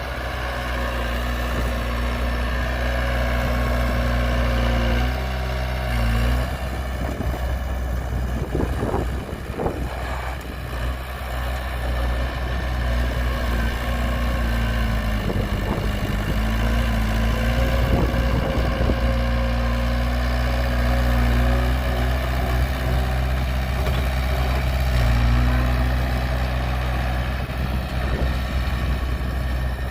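Heavy earthmoving machinery's diesel engines running steadily, their pitch dipping and rising now and then as they work.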